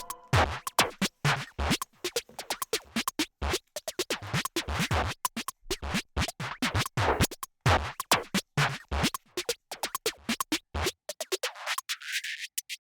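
Background electronic music in a sparse break of irregular scratchy clicks and ticks, with the low end swept away near the end.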